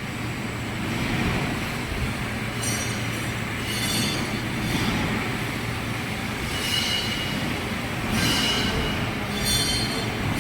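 Metal lathe turning with a steady low hum, and repeated short high squeals as the cutting tool bites into the metal under hand feed.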